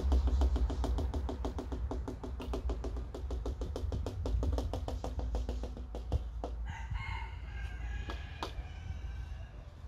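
A rapid, even ticking over a low rumble, which stops about six and a half seconds in, followed by a few short, high animal calls.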